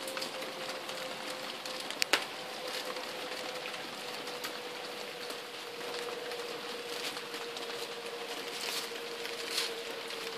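Quiet background ambience: a steady hiss with a faint, steady hum that drifts slightly lower in pitch, and a couple of sharp clicks about two seconds in.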